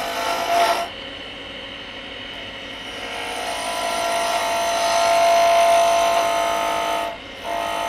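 Wood lathe running while a bowl gouge cuts the spinning spindle, a hissing cut over a steady whine. There is a short cut in the first second, then a longer cut that swells through the middle and stops about seven seconds in, with another short cut near the end.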